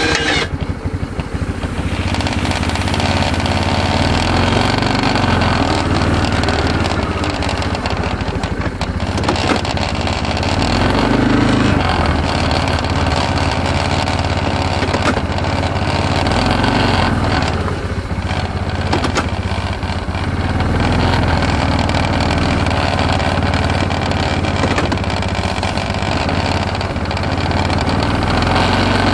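Kawasaki Prairie 360 ATV's single-cylinder four-stroke engine running under load while pushing snow with a front plow blade. Its pitch and level rise and fall with the throttle.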